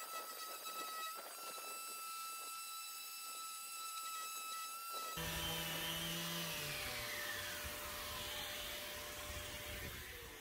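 Makita cordless random orbital sander, fed to a dust extractor, running steadily against an MDF edge with a high motor whine. About five seconds in it gives way to background music with low notes and a falling sweep.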